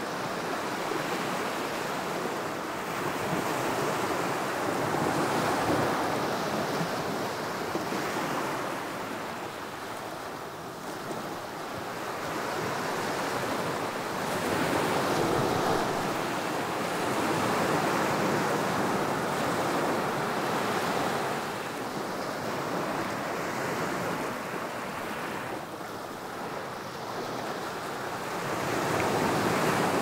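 Small ocean waves breaking and washing up a sandy beach: a continuous hiss of surf that swells and eases every few seconds.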